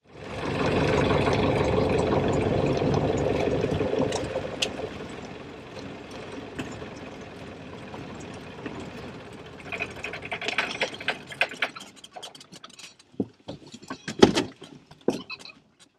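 Floatplane's piston engine and propeller running at taxi power, heard from the cockpit. The sound drops to a lower, steadier level after about four seconds. It then turns uneven about ten seconds in and dies away as the engine is shut down, leaving a few scattered knocks as the propeller comes to a stop.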